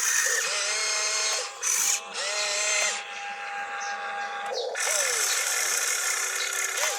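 Small electric motors of a radio-controlled construction model whining, starting and stopping several times with brief rises and falls in pitch.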